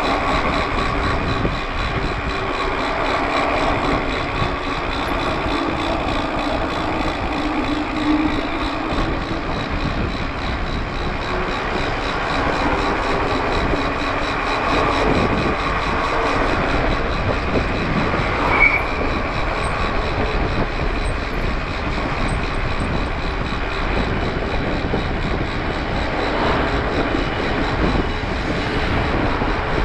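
Wind rushing over a GoPro action camera's microphone, with tyre and drivetrain noise from a Cannondale F-Si 29 carbon mountain bike being ridden. There is a brief high chirp about two-thirds of the way in.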